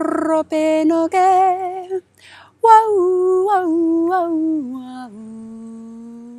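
A woman chanting light language a cappella: wordless sung syllables in two phrases, the second stepping down in pitch and settling on a long low held note that fades near the end.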